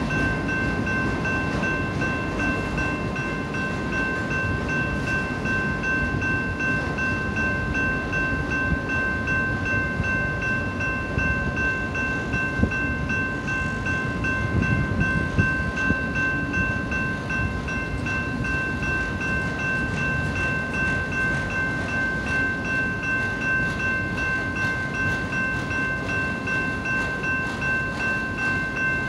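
Autorack freight train rolling past: a steady rumble and clatter of wheels on rail, with a few louder knocks near the middle. Over it runs the grade-crossing warning bell, ringing steadily.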